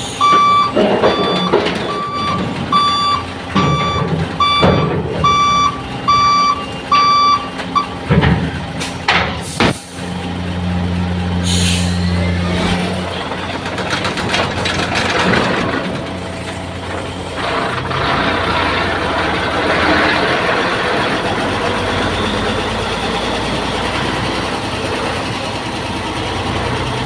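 Repeating electronic warning beeps, about two a second, from container-handling machinery; they stop about eight seconds in. A couple of sharp knocks follow, then a heavy diesel engine runs with a low hum and mechanical noise.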